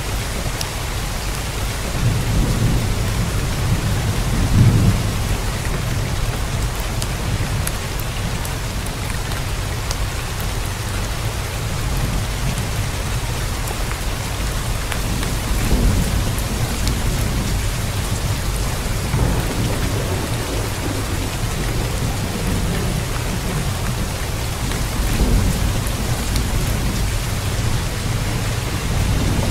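Steady heavy rain, with low rumbles of thunder swelling a few times.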